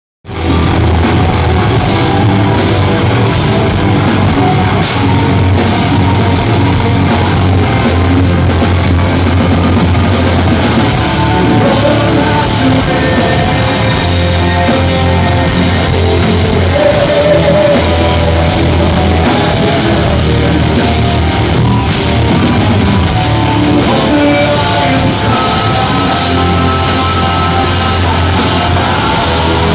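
Loud live hard rock from a band on stage: heavily distorted electric guitars, bass and pounding drums, with a male lead singer, heard from within the crowd.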